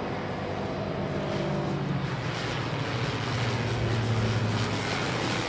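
A twin-engine propeller airplane flying past overhead, a steady low engine drone that grows louder about two-thirds of the way through as it comes closer, then eases slightly.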